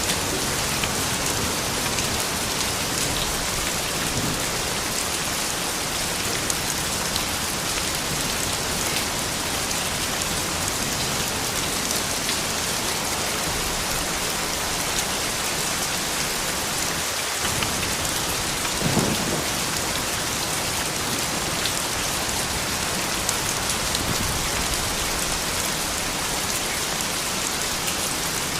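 Steady soft rain falling, an even hiss with individual drops ticking through it, and one brief, slightly louder knock about two-thirds of the way through.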